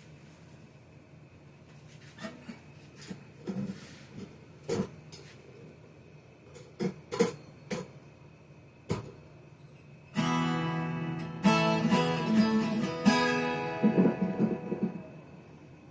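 Acoustic guitar being tried out: scattered single plucked notes and taps on the strings, then about ten seconds in a strummed chord that rings for a few seconds, followed by a few more quick strums and plucks.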